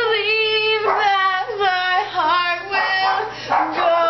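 A girl's voice singing, holding drawn-out notes that slide up and down in pitch.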